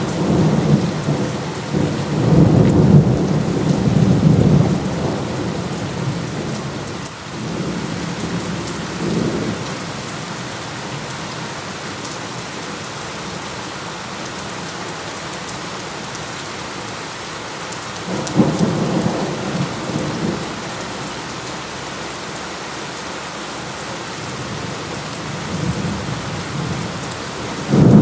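Steady heavy rain with rolling thunder. Low rumbles swell and fade several times: a long one at the start, a short one about a third of the way in, another about two-thirds through, and a sudden loud one right at the end.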